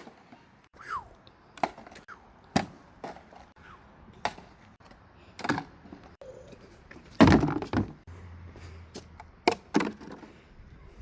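A series of scattered clicks, knocks and clunks from handling things around the car, with a few short falling squeaks early on and one heavier thud about seven seconds in.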